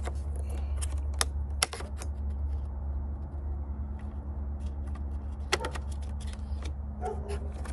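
Scattered sharp plastic clicks and light rattles of hands seating a fuse tap and its wire in a Jeep Wrangler JK's fuse box, over a steady low hum: a few clicks about a second in, a pair past the middle, and more near the end.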